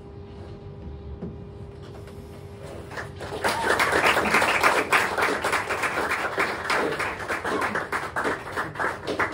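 A faint held grand-piano note dies away, then audience applause breaks out about three seconds in: many hands clapping quickly and continuously.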